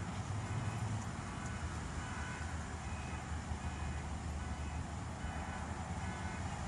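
Car engine idling steadily with a low hum, heard from inside the car's cabin.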